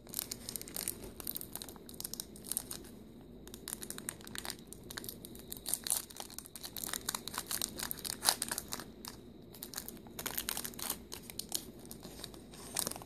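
The wrapper of a Revised-edition Magic: The Gathering booster pack being peeled and torn open by hand, crinkling and crackling in irregular bursts.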